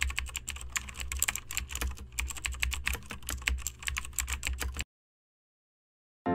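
Keyboard typing sound effect: rapid, uneven key clicks over a low hum. It cuts off abruptly about five seconds in, and after a second or so of silence music begins at the very end.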